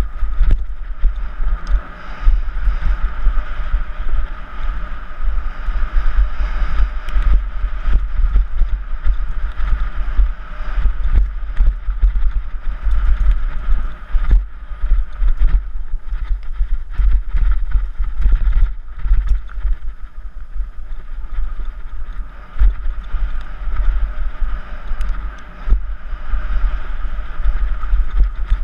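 Heavy wind buffeting on the bike-mounted camera's microphone as a mountain bike rides fast down a dirt singletrack. Frequent rattles and knocks come from the bike as it runs over the rough, rocky trail.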